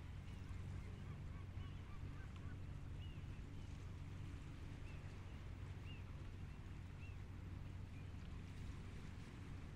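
A steady, faint low drone of a distant engine, with short chirping bird calls scattered through it.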